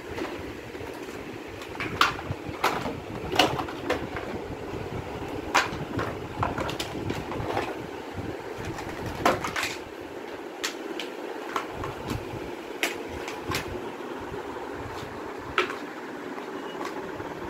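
Hard plastic parts of a disassembled LG semi-automatic washing machine knocking and clattering as they are handled: a dozen or more sharp knocks at irregular intervals over a steady background hum.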